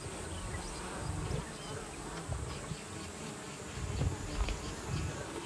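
Flies buzzing, with low lion growls coming and going.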